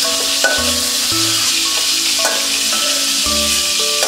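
Shrimp frying in hot oil in a steel karahi, a steady sizzle, while a metal slotted spoon lifts them out with a few light clinks. Background music with a bass line plays over it.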